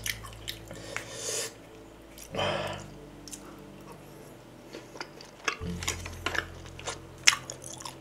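Close-miked chewing of chewy grilled pork skin, with wet mouth clicks and smacks that come thicker in the last few seconds. Two short breathy puffs come about a second and two and a half seconds in.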